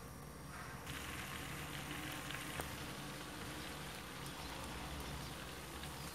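Used frying oil with blended lemon pulp sizzling faintly in a pot as it starts to boil, the sizzle picking up about a second in. A few small clicks are mixed in.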